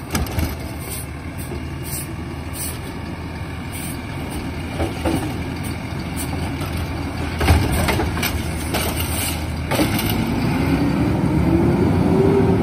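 Kenworth side-loader garbage truck: its automated arm clanks as it sets a cart down and retracts, over the running engine, with a few louder knocks later. Near the end the engine speeds up with a rising pitch as the truck pulls away.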